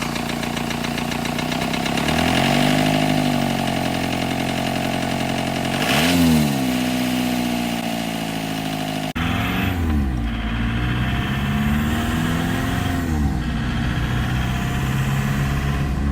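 Volkswagen TDI turbo-diesel engine running and being revved in about four short blips, each rising and falling back to idle, with an abrupt change in tone about nine seconds in.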